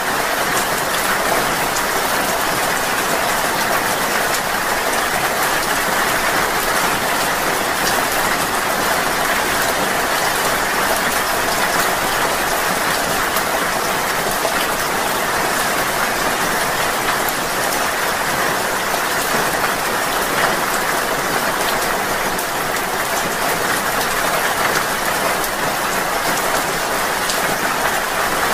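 Steady rain falling: an even, unbroken hiss with fine drop ticks heard through it.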